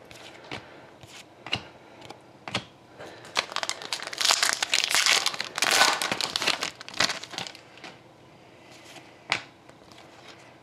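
A few sharp snaps as trading cards are flipped in the hand. In the middle, a foil card-pack wrapper is torn and crinkled for about four seconds, the loudest part.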